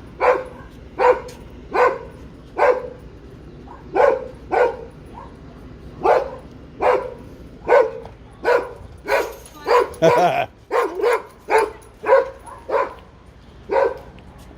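A dog barking over and over at a steady pace, about one bark a second. The barks come faster and more jumbled in the second half.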